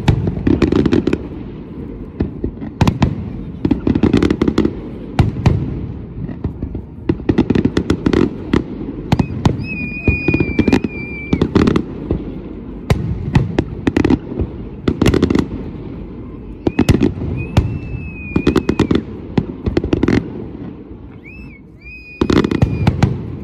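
Aerial fireworks display: shells bursting with loud bangs and crackling, in clusters of rapid reports every second or two, with booming low rumbles between them and a final dense volley near the end.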